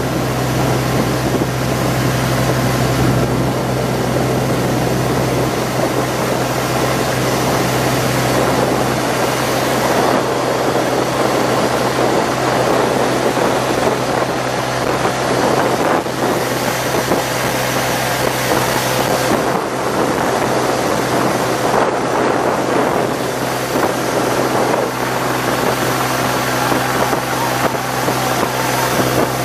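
A small fishing boat's engine running steadily under way: a constant low hum under the rush of wind and water.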